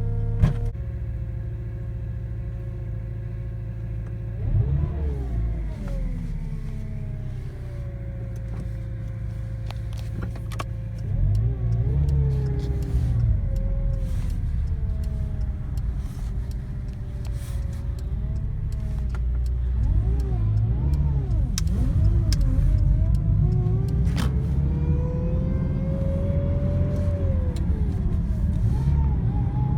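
Car engine running with a whine from the power steering pump that rises and falls in pitch again and again over the engine hum, with a few sharp clicks. The noise is the sign of the pump cavitating.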